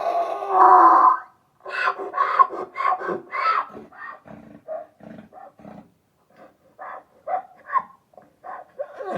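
Donkey braying. A loud bray ends about a second in, followed by a long run of short, wheezy honks and gasps that grow quieter and further apart.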